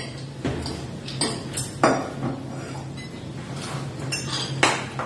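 Metal spoons and forks clinking and scraping against ceramic plates as several people eat, a handful of sharp clinks spread unevenly through, over a low steady hum.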